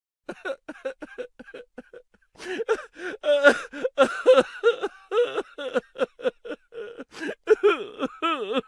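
A person laughing in quick repeated bursts, soft at first and louder from about two and a half seconds in, ending in a wavering, rising-and-falling laugh.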